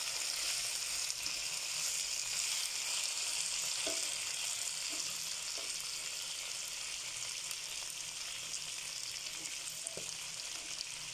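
Marinated chicken pieces and curry leaves sizzling steadily in oil in a frying pan, the chicken's juices already cooked off so it is now shallow-frying, with a few light spatula stirs.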